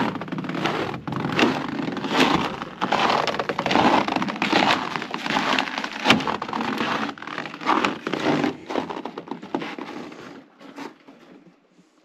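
Footsteps crunching and creaking in snow on a wooden deck, a dense run of short cracks that fades out near the end. Snow makes this noise underfoot only in extreme cold, here about −41 °C.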